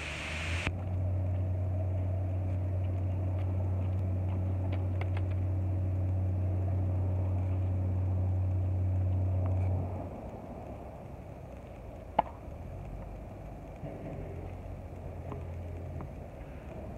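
A steady low engine hum runs at a constant pitch and cuts off about ten seconds in. After that it is quieter, with one sharp knock about two seconds later and the hum faintly back for a while.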